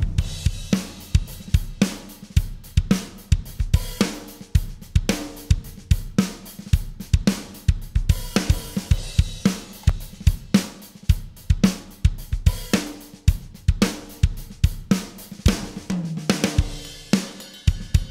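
Drum kit groove from Steven Slate Drums 5 samples in a steady beat of kick, snare and hi-hat. It plays through a Wes Audio Dione SSL-style VCA bus compressor that is switched between bypassed and engaged. When engaged, the compressor tightens and thickens the kick and pulls in the pokey snare transient.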